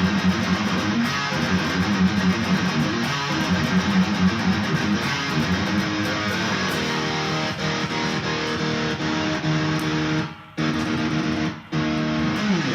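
Yamaha Pacifica electric guitar with active Seymour Duncan pickups being strummed. Near the end the sound cuts out suddenly twice for a moment, the momentary kill switch silencing the signal while it is pressed.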